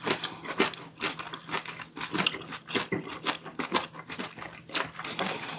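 Close-up chewing of a mouthful of spicy stir-fried baby octopus with bean sprouts: a fast, irregular run of small wet clicks and crunches.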